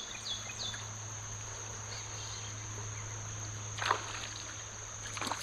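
Outdoor ambience by the water: a steady, high-pitched insect drone with a run of quick falling chirps in the first second, and one brief noise about four seconds in.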